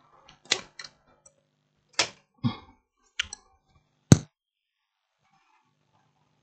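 A handful of sharp clicks and knocks, about seven in four seconds, from tools and parts being handled on a workbench; the loudest comes a little over four seconds in.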